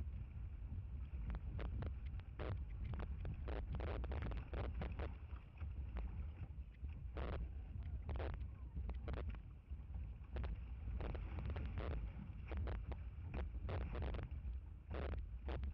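Open canoe running whitewater rapids: a steady deep rumble of rushing water and wind on the microphone, broken by frequent irregular splashes and knocks of water and paddle against the hull.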